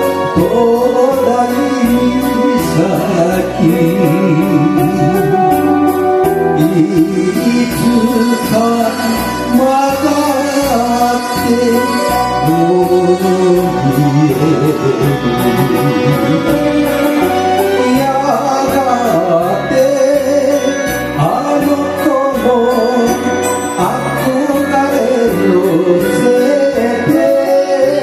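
A singer performing a Japanese kayōkyoku song into a microphone over a karaoke backing track, with a steady bass beat under the sung melody.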